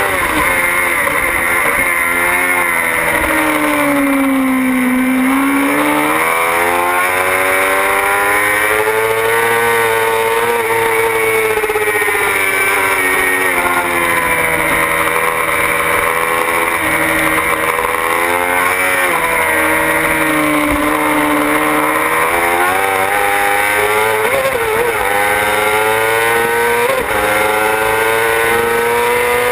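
Yamaha R6 sport bike's inline-four engine at racing speed, its revs climbing and dropping over and over as it shifts through the gears, braking into corners and accelerating out.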